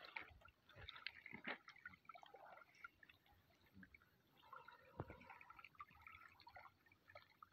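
Near silence: faint lapping of small waves on a pebble shore, with a few soft ticks scattered through it.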